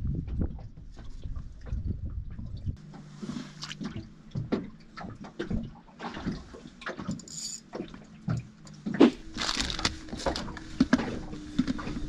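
Water slapping and sloshing against a small boat, with scattered knocks and clicks of fishing gear being handled on the deck. One sharper knock about nine seconds in is the loudest sound.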